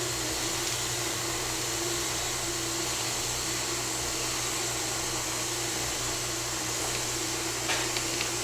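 KitchenAid stand mixer motor running steadily, driving an apple peeling, coring and slicing attachment, with a few light clicks near the end.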